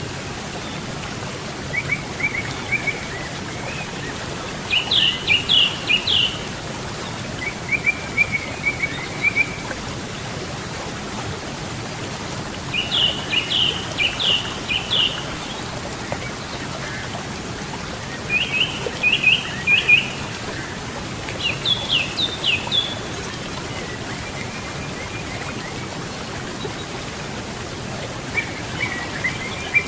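Steady rush of flowing river water, with a songbird singing short phrases of quick high notes every few seconds.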